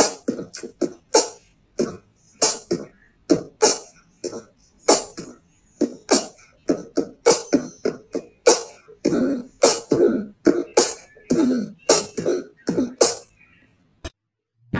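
A rapid run of short cough-like bursts, two or three a second and uneven in loudness, stopping shortly before the end.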